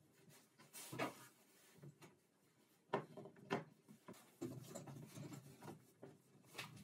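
Bar clamps and plywood parts being handled on a table saw top. There are a few light knocks and clicks as the clamps are set and tightened, the sharpest about three seconds in, with soft scraping in between.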